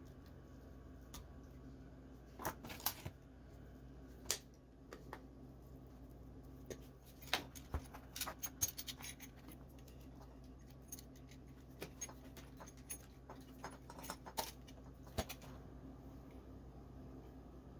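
Scattered small clicks and light metallic taps of hands working electrical wire and tools, over a steady low hum.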